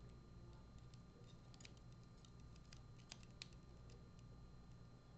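Faint, scattered light clicks of small lock pins and a pick being handled as a pin-tumbler lock is taken apart, over a low steady hum.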